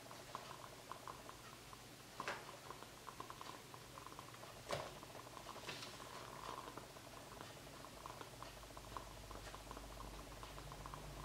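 Faint scratching and light tapping of a pen writing on paper, many small quick strokes, with two sharper clicks about two seconds and about four and a half seconds in.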